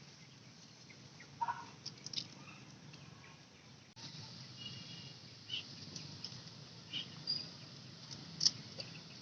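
Belgian Malinois tearing and chewing grass: scattered short crunches and snaps, the sharpest about eight and a half seconds in. Small birds chirp briefly now and then.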